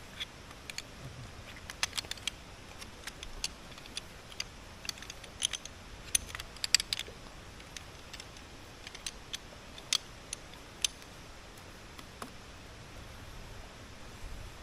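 Scattered light clicks and clinks of small hard objects, irregular and uneven in loudness, over steady low background noise.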